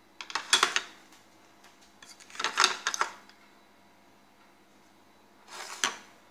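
Kitchen utensils clinking and scraping against a ceramic mug and plate, in three short spells a couple of seconds apart, as powdered biscuit is added to bread crumbs.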